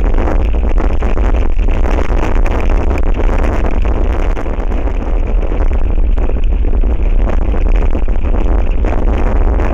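Strong wind buffeting the webcam's microphone: a loud, steady rumbling roar with no pauses.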